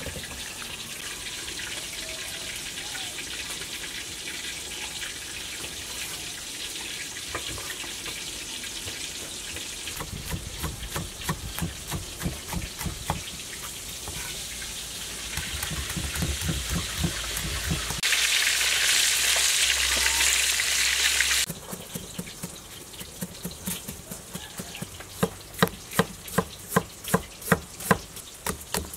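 A steady hiss, then scattered low knocks and a louder hiss for about three seconds, then a kitchen knife slicing ginger on a wooden cutting board, settling into a quick steady run of about two cuts a second near the end.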